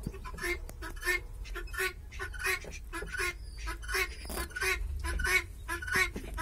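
Fowl calling in a fast, regular series of short calls, about three a second.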